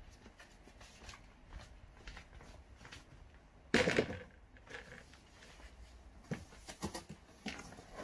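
A cardboard box being opened by hand: soft scrapes and clicks of packing tape and cardboard flaps, with one louder rip of tape about four seconds in.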